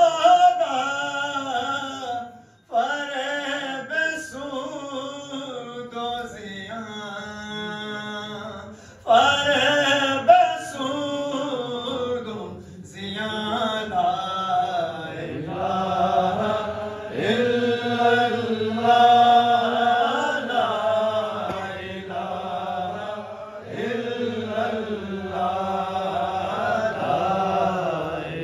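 A man chanting a devotional Urdu poem into a microphone, holding and bending long notes in phrases with short breaks between them.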